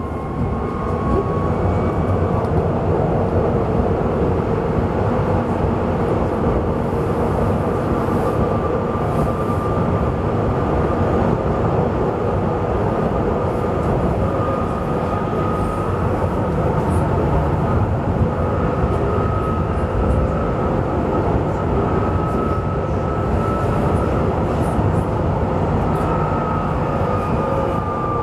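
Duewag B80D light-rail car running between stops: a steady rumble of wheels on track with a faint whine held at an even pitch, dipping slightly near the end.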